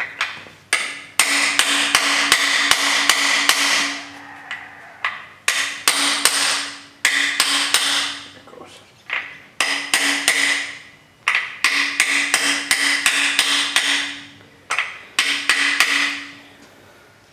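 Hammer striking a socket used as a driver to tap a brass freeze plug into a Chrysler 440 cast-iron engine block. The ringing metal strikes come about four a second, in five runs with short pauses between.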